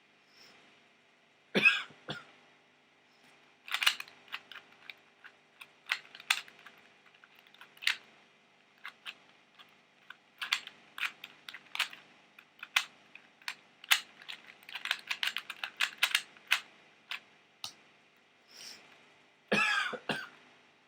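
Plastic 2x2 pocket cube being turned fast in a speedsolve: rapid clicking and clacking of the layers in quick flurries. A louder, longer noise comes about two seconds in and again near the end.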